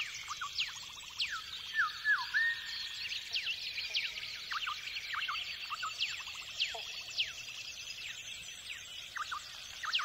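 A dense chorus of wild birds: many quick chirps and falling whistles overlapping, over a faint even hiss.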